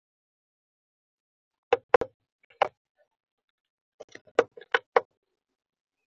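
Sharp knocks of a woodpecker's bill tapping on the bird feeder, close to the feeder's built-in microphone. Three taps come about two seconds in, then a quicker run of five or six a couple of seconds later.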